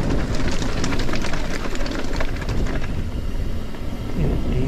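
Wind buffeting the microphone of a moving rider's camera, a heavy low rumble, with quick clicks and rattles from the ride over the lane that ease off about three seconds in.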